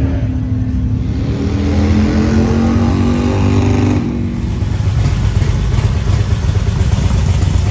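A motor vehicle engine running, its pitch climbing steadily over the first four seconds as it revs up, then settling into a steady, noisier rumble.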